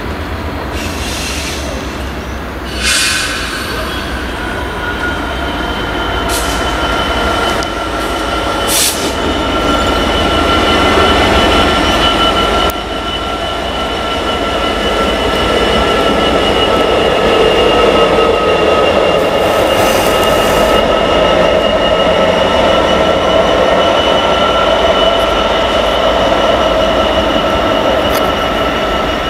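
A Freightliner Class 66 diesel locomotive running past with a freight train, rumbling steadily. From about three seconds in, a steady high-pitched squeal from the wheels runs on, with a few short metallic clanks in the first part.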